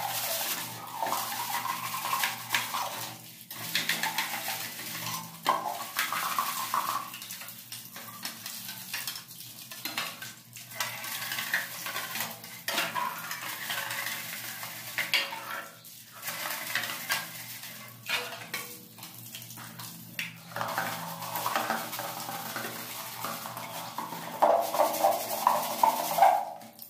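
Stiff plastic hand brush scrubbing a plastic standing-fan blade in quick repeated back-and-forth strokes. Near the end it scrubs a plastic fan housing, harder and louder.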